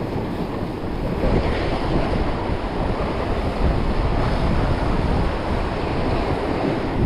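Sea surf washing against shoreline rocks, with wind buffeting the microphone in a steady low rumble.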